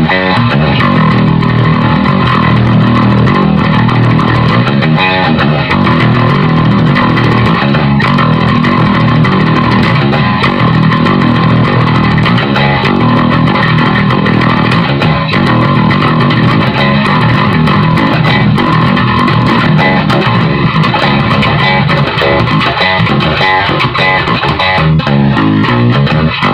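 Electric bass guitar played continuously through an Ampeg bass amp and speaker cabinet, with a thick, crunchy overdriven tone.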